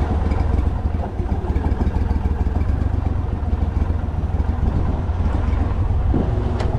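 Small fishing boat's motor running steadily at low speed, pushing the boat across the water.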